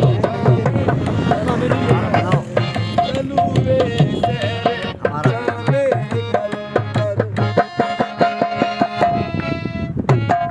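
Background music: a song with a steady drum rhythm under a melody that bends in pitch, with one long held note about eight seconds in.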